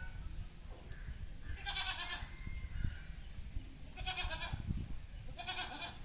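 Three short pitched animal calls, each about half a second long, coming about two, four and five and a half seconds in.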